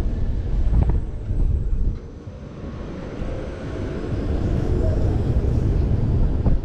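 Wind rushing and buffeting over the microphone of a rider's action camera as a fairground thrill ride swings them through the air. The rush eases about two seconds in, then builds again.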